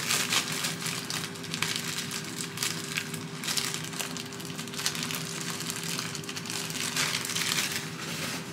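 Soft plastic packaging of a cotton-pad pack crinkling and rustling as it is torn open and handled by hand, in a close run of crackles. A steady low hum sounds underneath.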